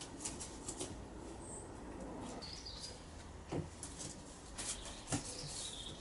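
Cardboard sheets being handled, giving a few soft knocks about three and a half and five seconds in, over a quiet background with brief faint high chirps.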